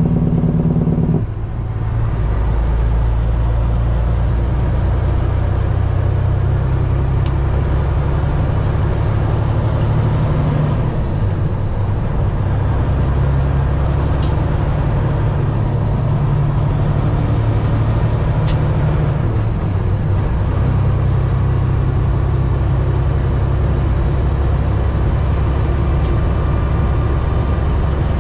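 Diesel semi truck's engine heard from inside the cab while driving, running steadily under load. Its note dips briefly about a second in and changes again around eleven and twenty seconds in.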